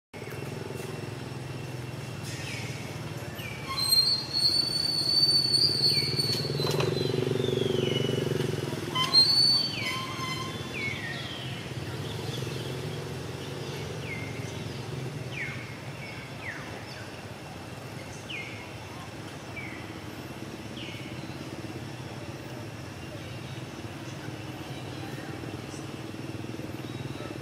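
Steady low engine drone that swells louder for several seconds about four seconds in, with short high-pitched chirps that fall in pitch scattered throughout.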